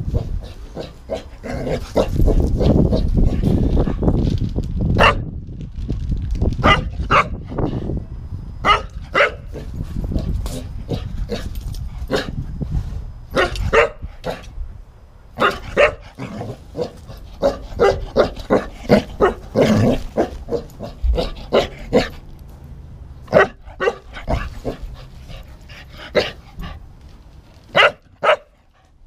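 English cocker spaniel barking repeatedly, in short runs of sharp barks with pauses between them. Stretches of low rumble on the microphone, heaviest about two to six seconds in.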